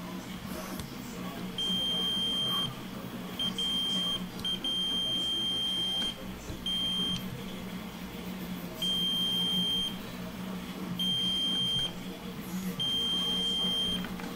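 Digital multimeter in continuity mode beeping as its probes touch the ESC's pads: a steady high tone in repeated beeps of uneven length, starting and stopping as the probes make and break contact. The beeps mean the KISS 4-in-1 ESC still has a short circuit.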